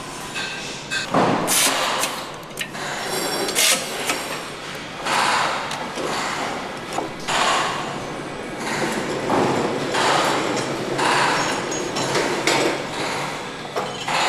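Engine assembly shop floor noise: repeated short hissing bursts, each about a second long, mixed with sharp metallic clicks and knocks of tools working on engines.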